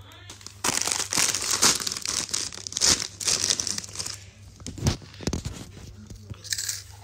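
Plastic snack packet crinkling and rustling as a hand rummages inside it for a snack, dense and crackly from about half a second in to about four seconds, then a few lighter rustles and clicks.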